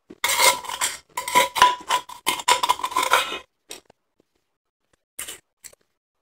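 Snow-type crushed ice crunching as it is chewed: a dense run of crunches for about three seconds, then a few single crunches and clinks as the metal spoon gathers more ice from the steel tumbler.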